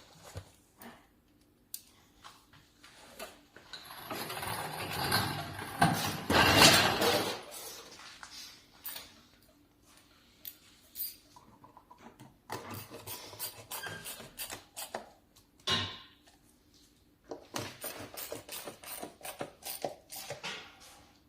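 Hard objects being handled, with scattered clinks and clicks. A louder rushing, rustling noise comes about four seconds in and lasts about three seconds, and a quick run of clicks follows near the end.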